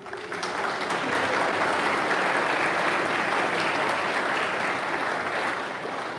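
Audience applauding: dense clapping that builds over the first second, holds steady, then tapers off near the end.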